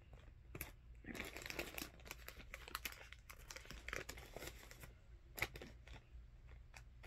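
Plastic candy bag of jelly beans crinkling as it is handled, densely for about four seconds, then a few scattered crackles.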